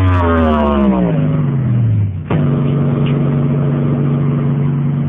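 Home car-audio rig with a 12-inch B-Bomber subwoofer, 8-inch speakers and a horn tweeter, playing loud. A deep buzzing tone glides steadily down in pitch over about two seconds, then a new steady, engine-like drone cuts in and holds.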